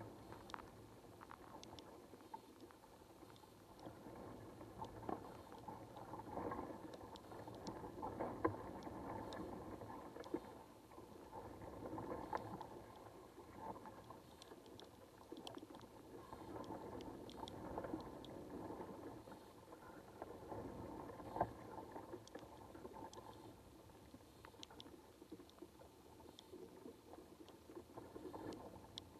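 Underwater ambience heard through a submerged camera: faint, muffled wash of moving water that swells and fades every few seconds, with scattered tiny ticks.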